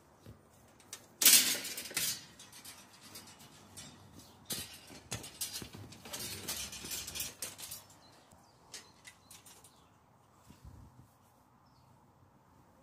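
Irregular bursts of rustling and handling noise. The loudest is a short, harsh burst about a second in, followed by scattered clicks and rustles until about eight seconds in.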